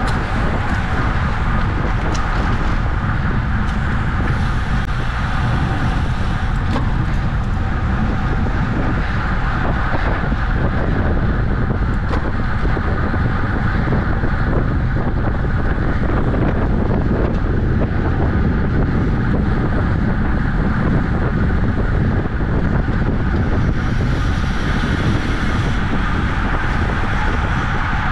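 Steady wind rush buffeting the microphone of a camera on a road bicycle moving at racing speed, deep and unbroken.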